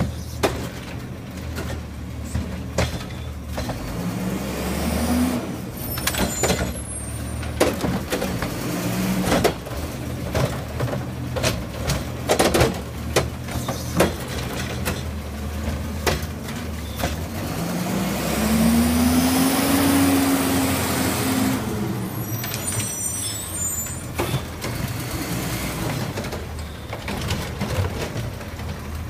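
Front-loading garbage truck's diesel engine running and revving up twice to drive the hydraulics as the front carry can and its gripper arm work the curbside carts, with repeated metal clanks of carts and arm. A hiss of air brakes follows the longer rev.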